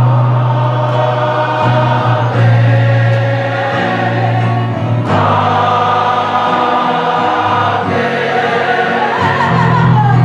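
Gospel choir singing with instrumental accompaniment, over sustained low bass notes.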